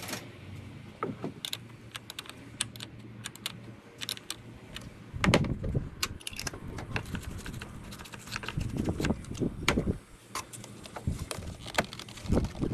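Metal clinks, rattles and knocks of hand work on a car battery and its hold-down bracket, with heavier thumps about five, nine and twelve seconds in.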